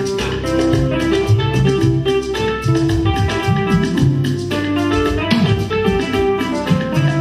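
Instrumental band music: guitar lines played over bass guitar and a drum beat.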